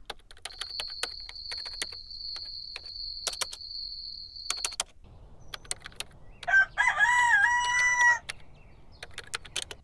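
A rooster crowing once, a call of about a second and a half, about six and a half seconds in. It is preceded by a steady high-pitched tone with scattered clicks that stops suddenly near the middle.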